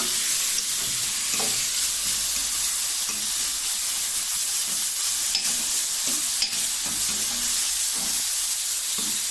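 Bite-sized pieces of chuck eye steak sizzling steadily as they sear in a hot stainless steel skillet, with a few sharp clicks of a utensil stirring them against the pan.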